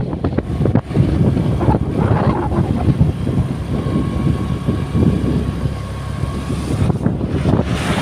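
Vehicle rumble with wind buffeting the microphone, a loud, uneven low noise, with a faint steady whine in the middle few seconds.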